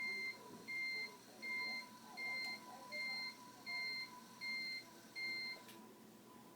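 Electronic beeping: a steady high tone sounding eight times, about three quarters of a second apart, then stopping near the end.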